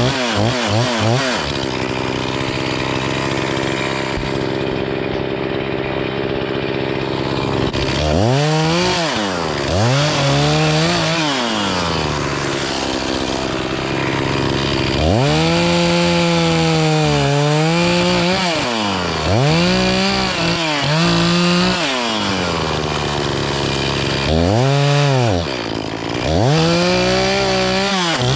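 Chainsaw bucking up maple logs: the engine runs steadily for a few seconds, then revs up and sags again and again as the chain goes through the wood.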